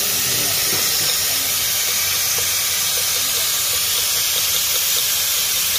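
Vacuum engine-cleaner suction tube hissing steadily as it draws air, cleaning fluid and loosened carbon deposits out of a cylinder through the spark plug hole.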